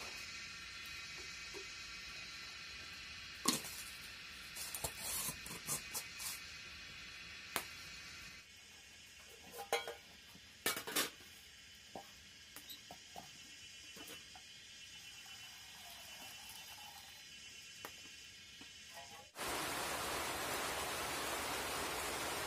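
Scattered clinks and knocks of aluminium cooking pots and utensils at a wood-fired stove. About nineteen seconds in this gives way abruptly to a loud, even hiss.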